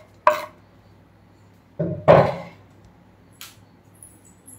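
A kitchen knife and wooden chopping board scraping and knocking against an aluminium pressure cooker as chopped tomato is pushed in: a few short knocks, the loudest pair about two seconds in.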